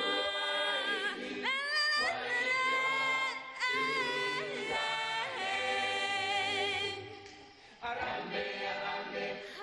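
Unaccompanied choral singing: several voices hold long notes and slide between them. The singing fades for about a second near the end, then comes back.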